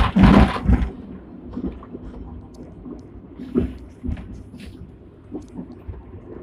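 Interior noise of a Hong Kong double-deck tram running: a low, steady rumble with a few scattered knocks and rattles. It opens with a loud burst of rushing noise that dies away within the first second.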